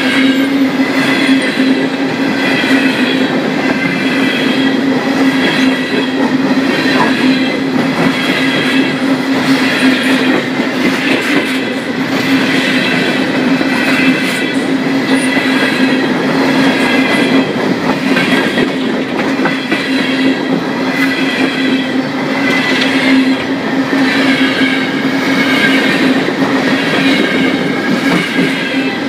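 Empty CSX coal hopper cars rolling past close by: a steady, loud rumble and rattle of steel wheels on the rails, with a regular, repeating clatter as the wheel sets pass.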